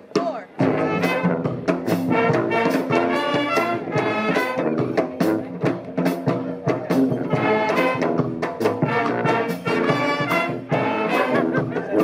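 Brass band playing: trumpets and trombones over a sousaphone bass line, with bass drum, snare and cymbal hits keeping a steady beat. It starts about half a second in.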